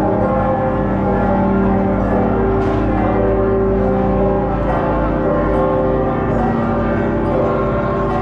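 Church bells ringing a continuous peal, several pitches sounding and overlapping together.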